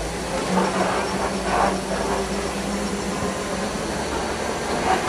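Safari ride truck running steadily, heard from inside the open-sided vehicle: an even engine and road noise, with a steady hum during the first few seconds.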